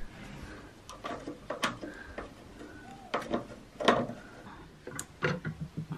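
Light clicks and knocks, a few seconds apart, from white louvred window shutters being handled and closed.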